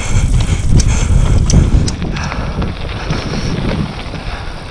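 Wind buffeting a camera microphone over the rumble and rattle of a mountain bike rolling down a rocky dirt trail, with a few sharp knocks in the first two seconds. It gets quieter after about two seconds.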